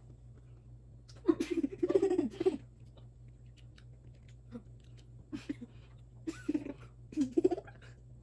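People laughing and giggling while eating, in two bursts: one about a second in, and another about six to seven and a half seconds in.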